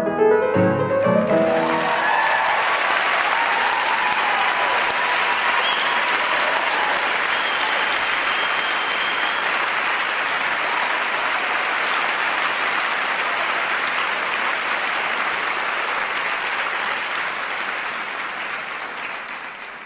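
The last notes of a piece of music end about a second in, followed by an audience clapping steadily; the applause fades out near the end.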